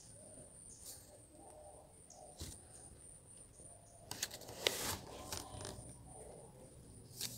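Small scissors snipping thread, trimming the ends of a thread tassel: a handful of faint, scattered snips, the loudest a little past halfway.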